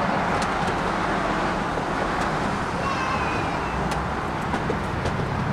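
Steady road traffic noise from passing cars, with a few faint light knocks.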